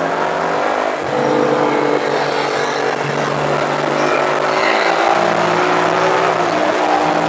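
Small motorcycle engine running under way, its pitch shifting in steps a few times.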